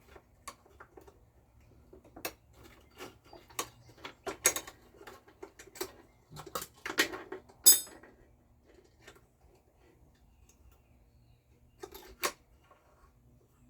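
Scattered light clicks and clinks of a new mower drive cable and its fittings being handled and fed through the self-propel housing, the loudest knock about eight seconds in.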